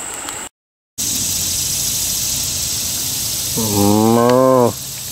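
A Holstein cow mooing once, a call of about a second, over a steady background hiss.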